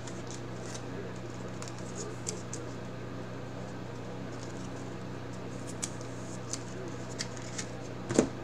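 Chrome trading cards being handled and flipped one after another, giving scattered light clicks and scrapes, with a louder knock near the end. A steady low hum runs underneath.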